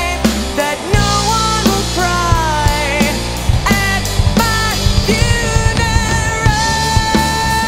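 Rock band playing with electric bass and drum kit, under a lead line of bending, sliding notes that settles into one long held note about five seconds in.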